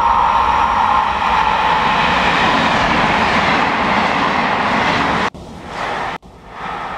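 A locomotive-hauled regional passenger train passing close by at speed: a loud, steady rush of wheels on rail. The sound breaks off abruptly about five seconds in and again a second later, leaving a quieter background.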